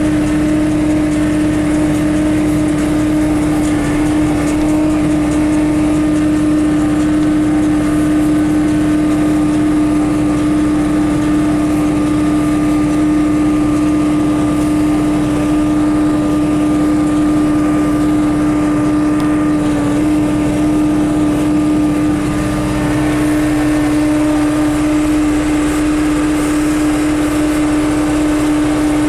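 John Deere 6300 tractor's four-cylinder diesel engine running steadily at working speed while baling hay, with a strong constant drone. Its lower tones shift slightly about three-quarters of the way through.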